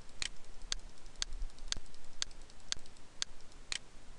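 Computer mouse button clicked over and over at an even pace, about two clicks a second, eight in all, stepping a value down one notch per click.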